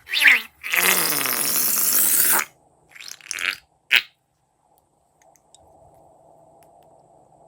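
A balloon being squeezed empty, its contents forced out through the neck in a loud noisy blast with a falling pitch, about two seconds long. It is followed by a few shorter squirts and a sharp click.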